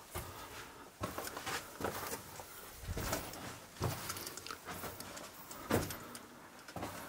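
Uneven footsteps with scuffs and knocks, roughly one or two a second, the loudest a little before the middle and about six seconds in.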